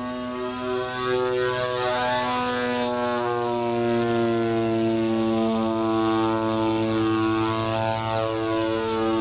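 Twin DLE two-stroke gasoline engines of a giant-scale RC Grumman Albatross model in flight, running steadily at cruise. The drone wavers slightly as the two engines drift in and out of step.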